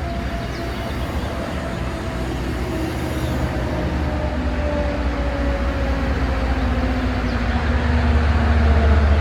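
Train running through a station, its engine or motor tone slowly falling in pitch while a low rumble grows louder toward the end.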